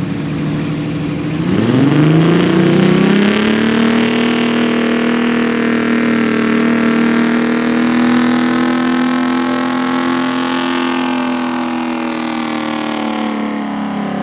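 Freightliner semi truck's Detroit Diesel engine revving up about a second and a half in, then held at high revs under heavy load while pulling a weight sled.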